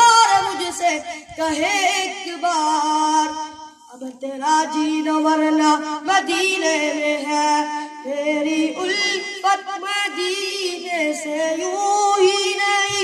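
A boy's solo voice singing a naat, a devotional Urdu poem in praise of the Prophet, into a microphone: long held notes with melodic ornaments, and a short breath pause a little under four seconds in.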